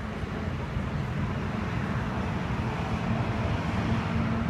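Low engine rumble of a motor vehicle running nearby, gradually getting louder.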